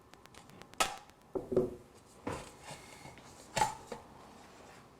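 A handful of sharp clicks and knocks, spaced irregularly, as the wire connectors are pushed back onto the thermal switch terminals on the distiller's base by hand and needle nose pliers.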